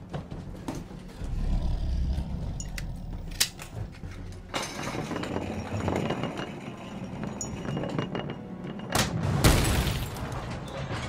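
Film action sound effects: crashing and breaking with a low rumble under them, then a loud explosion near the end.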